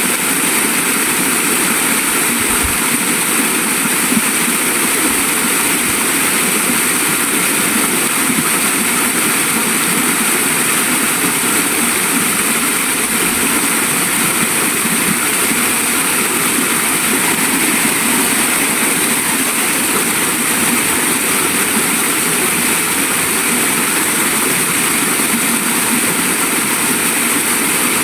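Waterfall: falling water rushing steadily and evenly, with no breaks or changes.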